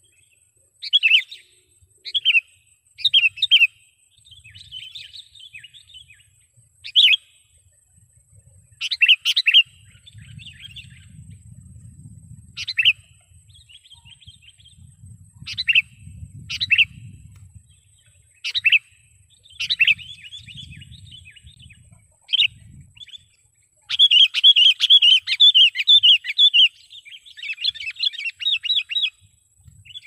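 Sooty-headed bulbul (kutilang) decoy bird calling: short sharp calls every second or two, then, about six seconds from the end, a fast run of chattering notes.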